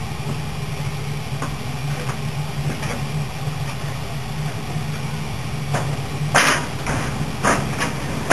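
A small engine runs steadily with a low hum. A few sharp metallic clanks and knocks come in the second half, the loudest about six and a half seconds in.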